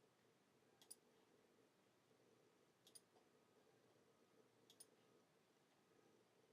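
Near silence with three faint, sharp clicks about two seconds apart over a low room hum.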